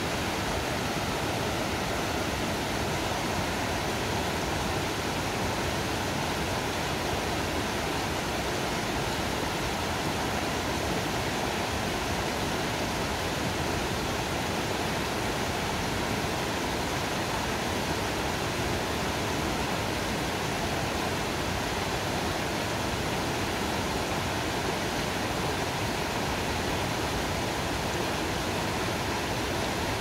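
Small creek cascading in white water over rocks: a steady, unbroken rush of water.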